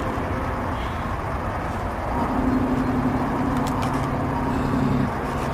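Steady low outdoor rumble. About two seconds in, a motor vehicle's engine hum joins at a steady pitch, lasts about three seconds and stops shortly before the end.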